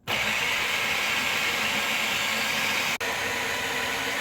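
Small electric kitchen machine running at speed, churning heavy cream into butter. It starts abruptly and runs steadily, with a brief break about three seconds in.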